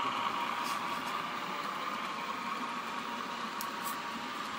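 Recorded Class 50 diesel engine sound played by a sound decoder through the small speaker of a Dapol N scale model locomotive: a steady, tinny engine hum that fades slightly.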